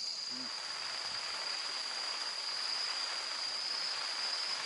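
A steady, high-pitched chorus of night insects with an even shrill tone.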